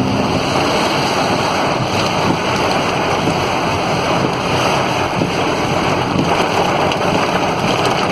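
Fast-flowing floodwater rushing down a flooded street, a loud, steady wash of water noise.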